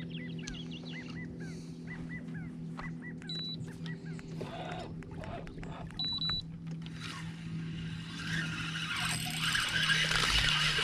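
A boat motor running with a steady low hum, while birds chirp in the first few seconds; a rushing noise builds up over the last few seconds.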